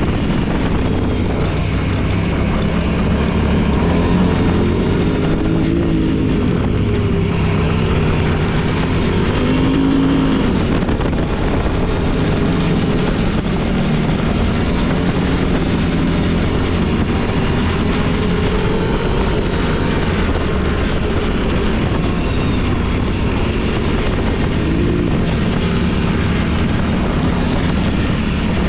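Off-road vehicle engine running hard, its pitch rising and falling again and again as the throttle changes.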